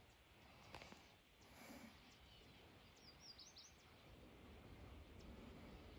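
Near silence outdoors: faint hiss with a few faint, quick bird chirps about three seconds in.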